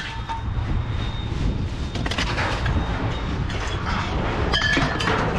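Metal clanks and rattles over a steady low engine rumble, with one sharp ringing clang near the end.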